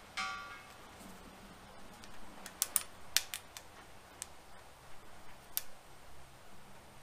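Pliers clicking on a gas regulator's brass hose fitting and hose clamp. A brief ringing note comes right at the start, then a quick run of sharp metal clicks about halfway through, and a couple of single clicks after.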